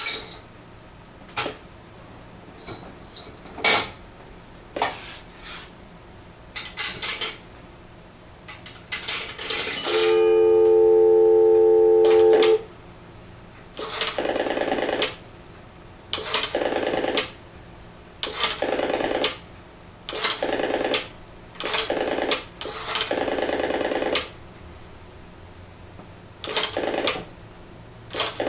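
Antique Western Electric 236G three-slot payphone being operated: sharp clicks and clatter from the handset and coin mechanism, then a steady dial tone lasting about two and a half seconds, then a run of about six short buzzy tone bursts roughly a second apart, with more clicks near the end.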